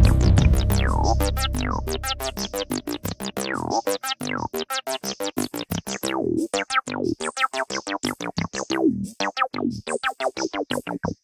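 Background music: a fast run of short keyboard notes, each struck and dying away, over a low bass that fades out in the first couple of seconds. It cuts off suddenly at the end.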